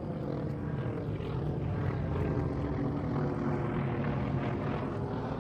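Steady low droning of an aircraft engine overhead.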